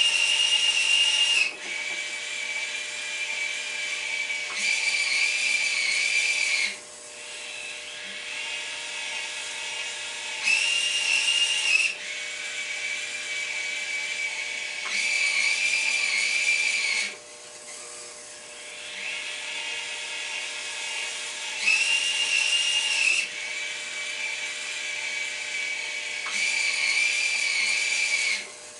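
The small motors of a radio-controlled model crane whine as they work the boom and clamshell bucket. The high-pitched whine grows louder in bursts of a second or two, six times over, with its pitch shifting from burst to burst, and a quieter whine keeps running in between.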